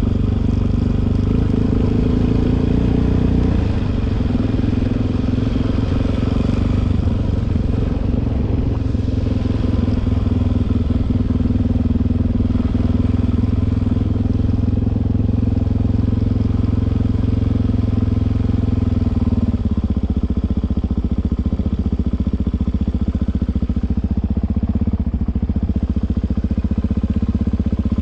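Suzuki DR-Z400's single-cylinder four-stroke engine running steadily, its note dropping to a lower engine speed about two-thirds of the way through.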